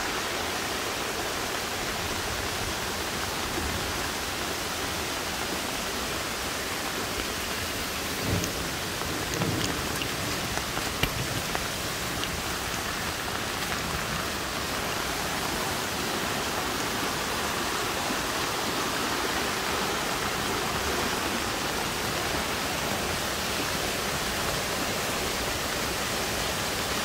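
Steady hiss of heavy rain mixed with the rush of muddy floodwater in a normally dry creek bed swollen into a torrent. A few brief knocks come about a third of the way in.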